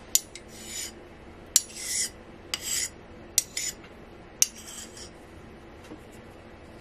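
Straight razor honed on a wet whetstone: five strokes, each starting with a sharp click of the blade meeting the stone, then a short scraping hiss of steel across the stone. The strokes stop about two thirds of the way through, leaving faint ticks.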